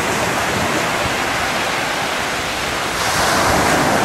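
Sea surf washing onto the shore, a steady rushing that swells about three seconds in, with wind buffeting the microphone.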